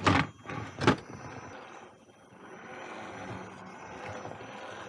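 Two sharp knocks about a second apart, then the quiet steady running of a scale RC crawler truck's electric motor and drivetrain as it crawls over dirt and rocks.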